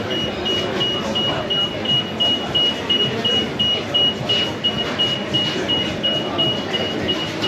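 A high-pitched electronic beeper going off steadily, with rapid evenly spaced beeps several times a second, over the clatter and chatter of a busy kitchen.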